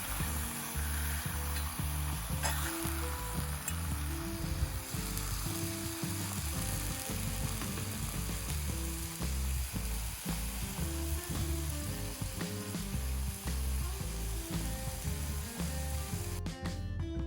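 Background music with changing bass notes over a steady sizzling hiss. The hiss cuts off suddenly near the end, leaving only the music.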